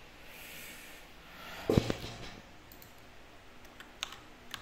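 A single dull thump a little under two seconds in, then a few sharp light clicks near the end.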